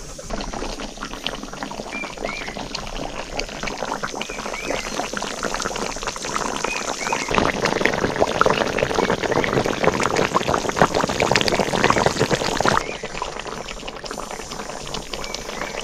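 Pork curry boiling hard in a wok over a wood fire: dense bubbling and popping, louder for about five seconds in the middle.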